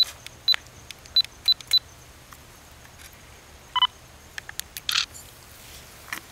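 Camera handling noise: a quick series of sharp clicks in the first two seconds, a short electronic beep about four seconds in, and a brief rustle near five seconds.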